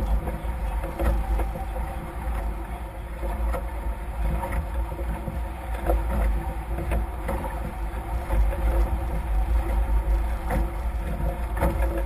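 Wind buffeting the microphone with a heavy, gusting rumble, over the rush and splash of a Nacra F18 racing catamaran's hulls cutting through chop at speed, with frequent irregular small knocks.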